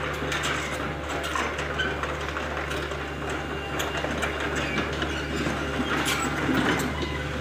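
Hitachi Zaxis 48U mini excavator's diesel engine running with a steady hum as the machine travels on its rubber tracks, with irregular clanking and rattling from the undercarriage.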